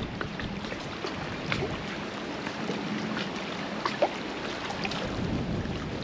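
Small wind-driven waves lapping and splashing against the lake shore, over a steady rush of wind, with many faint ticks of water and one sharper tap about four seconds in.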